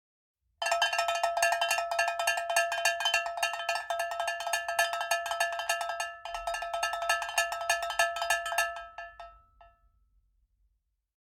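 Rapid, continuous strikes on a ringing metal object, a bell-like tone rattled many times a second. It starts abruptly about half a second in, breaks off briefly around six seconds, and fades out near the end.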